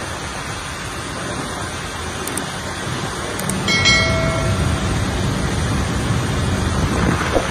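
Steady cabin noise of a light aircraft's engine in flight, heard inside the cockpit. About four seconds in, a short electronic chime with a couple of soft clicks just before it, from a subscribe-button animation.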